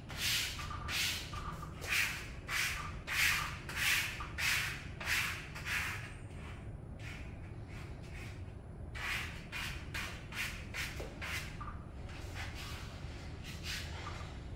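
Plastic squeegee plate swept in short repeated strokes over wet window privacy film on glass, a rubbing scrape about twice a second, pushing water and air bubbles out from under the film. The strokes stop for a few seconds in the middle, then start again.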